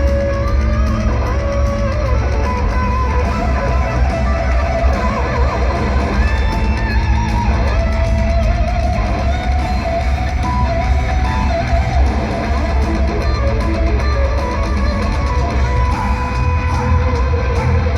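Live heavy metal band playing loud through an arena PA: distorted electric guitars over heavy bass and drums, with a lead guitar line of held, bending notes and no singing.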